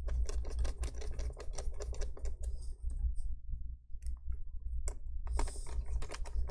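Small screwdriver driving in the tiny screws that hold a laptop speaker, heard as a quick run of light clicks for about three seconds, then a few scattered clicks.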